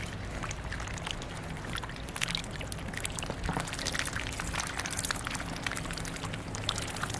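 Ducks dabbling their bills through slushy ice water: a steady run of irregular wet clicks, crackles and small splashes as the slush and ice chunks are stirred.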